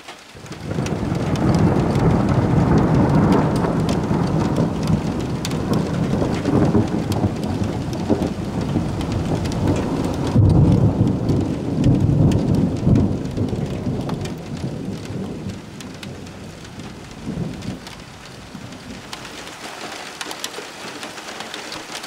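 Rolling thunder from a nearby storm: a long, deep rumble that builds about half a second in, swells again about halfway through, then dies away over the last several seconds. Steady rain hisses underneath.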